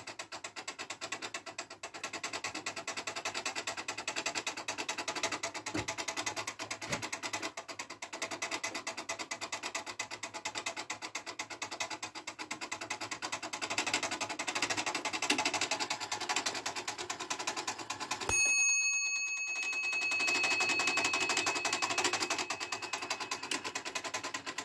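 Frisian longcase clock's works clattering with a fast, even run of clicks as they drive the dial animations. About eighteen seconds in, a bell is struck once and rings out for several seconds. The clatter stops for about a second and then starts again.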